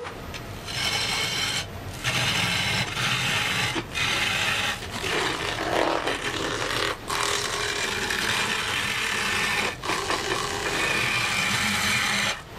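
Bowl gouge cutting into a spinning blank of green butternut on a wood lathe: a steady, rough scraping of wet wood, broken by about four short gaps where the tool comes off the wood between passes.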